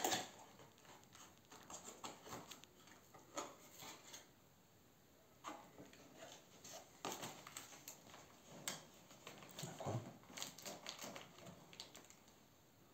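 Faint handling noise of a cardboard-and-plastic toy box: scattered clicks, taps and rustles as it is turned over and its flaps are felt for.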